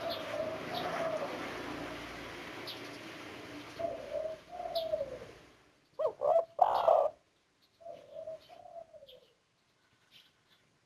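Spotted dove (tekukur) of the 'kuk 1' type cooing: a series of soft, low, mellow coo phrases with short pauses between them, the loudest a little past the middle.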